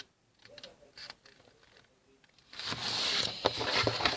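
A sheet of A4 paper being handled and folded, with faint crinkles at first, then loud rustling and crackling from about two and a half seconds in as the fold is pressed edge to edge.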